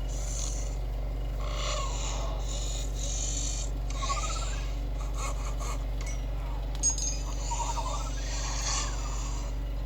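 Sound effects of the THX Tex robot: short mechanical scrapes and whirs and a few quick chirping glides, over a steady low hum, with one sharp clank about seven seconds in.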